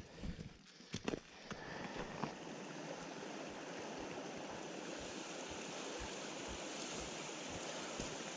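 Steady rush of a stream running high with runoff from heavy rain. It builds over the first couple of seconds and then holds steady. A few footsteps sound near the start.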